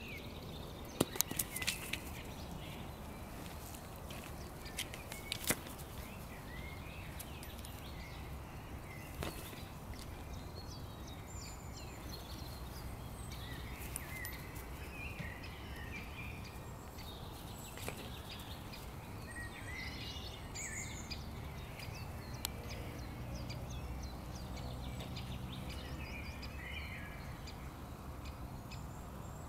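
Outdoor background: a steady low rumble with small birds chirping on and off throughout. A few sharp clicks come about a second in and again around five seconds in.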